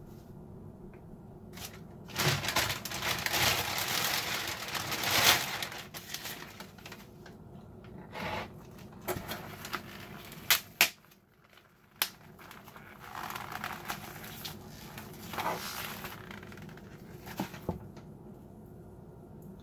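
Plastic meat packaging crinkling and tearing as it is peeled off a whole ribeye roast, loudest a couple of seconds in, with a few sharp clicks about halfway through.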